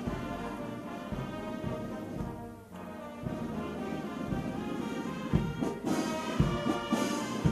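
Orchestral music led by brass, with low drum beats about once a second; it dips briefly a little under three seconds in, then continues a bit louder.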